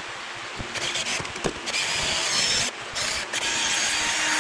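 Cordless drill drilling out a seized screw from an engine oil pump cover, metal on metal, with metal shavings coming off. It starts in short trigger bursts about a second in, then runs with a steady whine, stops briefly near the middle and runs on steadily.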